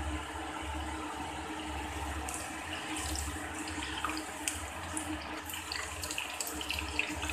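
Battered chicken pieces deep-frying in hot oil: a steady sizzle with crackling clicks that grow more frequent from about two seconds in, as a wire strainer stirs and lifts the pieces. This is the first of two fryings.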